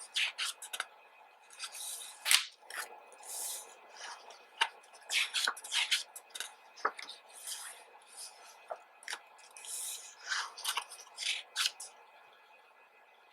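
Pages of a glossy photobook being turned and handled: a string of short paper swishes and rustles, with a sharp tap about two seconds in.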